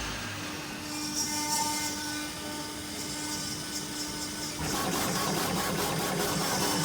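A CNC router and CO2 laser combo machine for stone running, with a steady hum and several thin whining tones. About four and a half seconds in it turns louder and noisier, with a fast, even pulsing.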